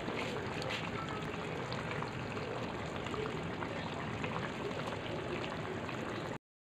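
Fish curry simmering in a wok, the yoghurt gravy bubbling and crackling with a steady hiss. It cuts off abruptly near the end.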